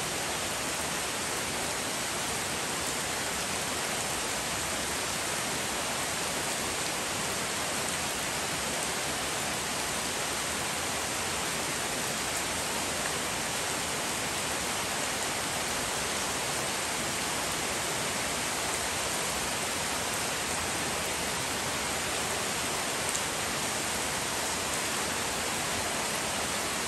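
Steady rain falling on garden foliage and wet ground, an even hiss with no letup.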